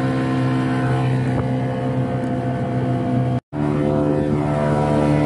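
Boat engine running steadily at an even speed. The sound drops out for a moment about three and a half seconds in, then resumes at a slightly different pitch.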